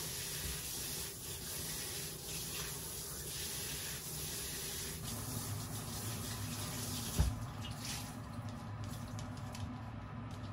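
Tap water running steadily, with a single thump about seven seconds in.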